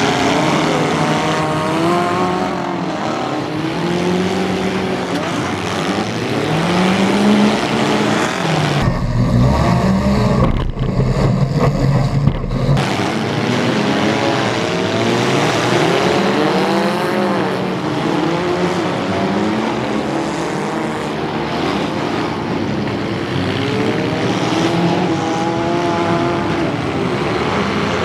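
Many midsize demolition derby car engines revving up and down at once, their pitches rising and falling over one another. A heavy low rumble swells in from about nine seconds in and drops away about three seconds later.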